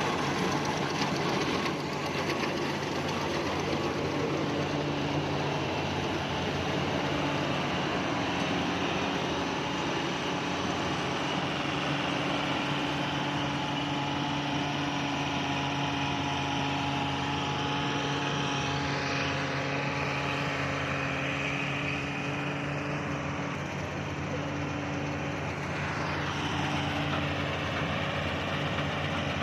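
Rice harvesting machine's engine running steadily, with the continuous hum and clatter of its machinery.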